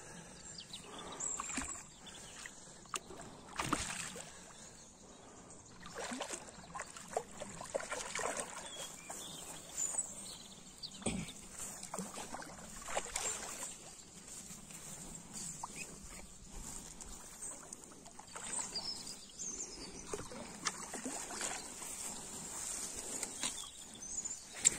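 Faint, irregular rustles and knocks with small water sloshes as a freshly landed carp of about 2 kg is handled.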